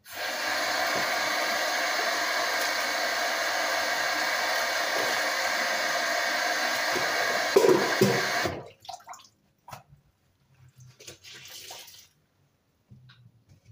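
Kitchen mixer tap turned on full, water pouring steadily into the sink as a plastic bowl is rinsed under it, with a few splashing knocks just before it is shut off about eight and a half seconds in. After that, only a few faint clicks and handling sounds.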